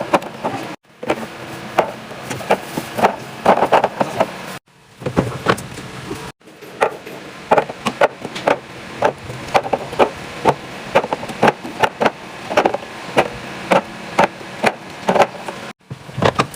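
Rapid clacks, taps and knocks of food containers and packaging being set down and handled during a refrigerator restock, several a second. The run is cut off abruptly a few times and picks up again.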